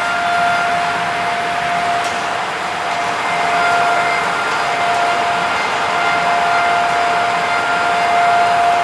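Bacci T4MO CNC asymmetric lathe cutting wooden parts: a steady high whine from the machine over a constant hiss of the cutters working the spinning wood.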